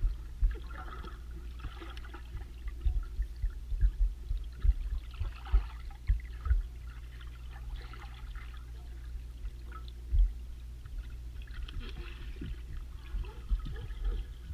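Muffled pool water heard through a submerged camera: bubbles fizzing and gurgling, with irregular low thuds.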